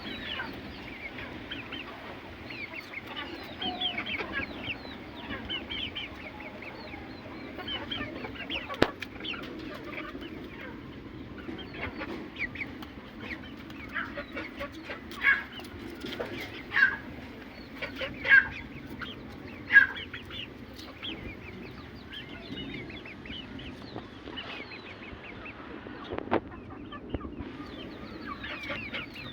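Chickens clucking, with many short high chirping calls throughout and four louder calls a little after halfway, over a steady low hum.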